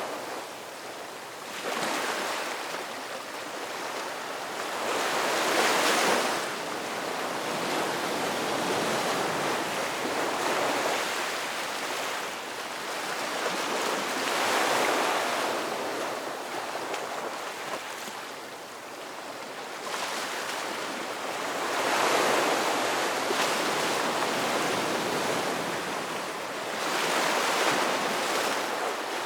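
Ocean surf breaking and washing up, a wide hiss that swells and falls back in slow surges every few seconds.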